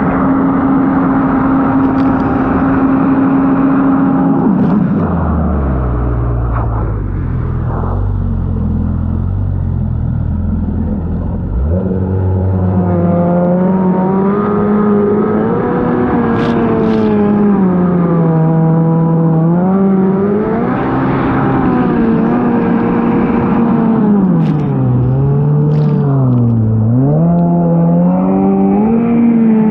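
Stand-up jet ski engine heard from on board. It holds a steady high pitch for the first few seconds, drops to a low idle-like note, then from about twelve seconds in revs up and down repeatedly as the throttle is worked.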